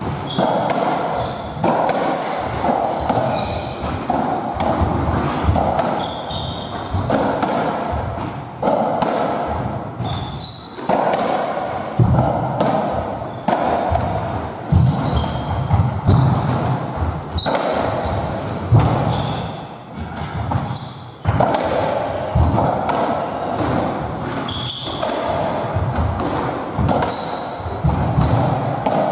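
Squash57 (racketball) rally: racket strikes and the ball hitting the walls and floor, many sharp knocks in an irregular rhythm. Short high squeaks of shoes on the wooden floor and running footsteps come in between.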